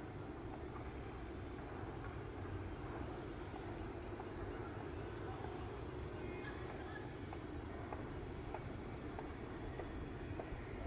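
Faint steady insect chorus: high continuous chirring with a slow pulsing in its upper tone, over a low rumble.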